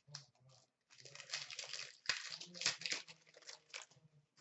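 Foil trading-card pack wrapper crinkling and tearing as it is ripped open by hand: a dense crackling rustle from about a second in, lasting about three seconds.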